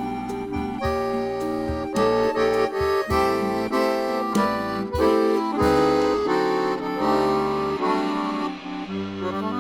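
Accordion playing an instrumental forró passage, a quick melody over rhythmic bass notes and chords.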